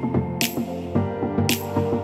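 Electronic background music with a steady beat: held chords under a bright percussion hit that comes about once a second, twice here.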